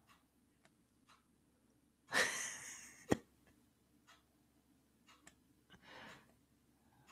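A person's loud exhale close to the microphone about two seconds in, followed by a sharp click and a softer breath near six seconds. Faint ticking about once a second runs underneath.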